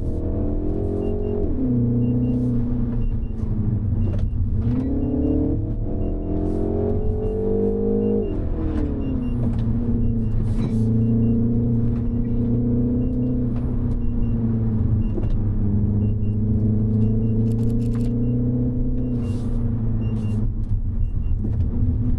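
Mini Cooper S's turbocharged four-cylinder engine under way. The revs drop about a second and a half in, climb for several seconds, fall back at around eight seconds, then hold steady for the rest.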